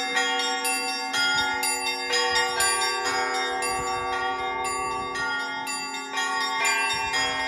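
Russian Orthodox church bells rung by hand by a bell ringer: quick strikes on several small and middle bells, a few each second, over the long hum of a larger bell.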